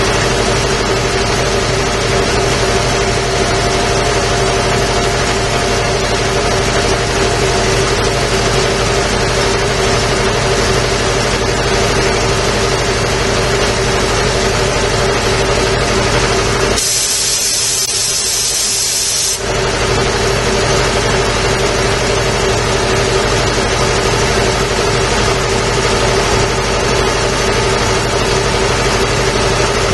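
A 5-horsepower Quincy QR-325 air compressor running steadily. A bit over halfway through, its 220-volt electronic automatic tank drain opens for about two and a half seconds with a sharp, high-pitched hiss as air and condensed water purge from the bottom of the tank, then shuts.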